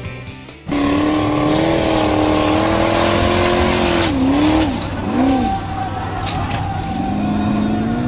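An off-road buggy's engine running at high revs as it climbs a steep dirt slope. The revs drop and pick up again twice about halfway through, then hold steady.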